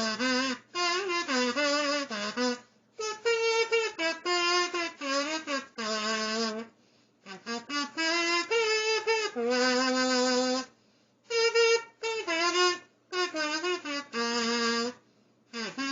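Sing-A-Tina kazoo buzzing out a melody in short phrases with brief pauses between them, its tone rich in overtones.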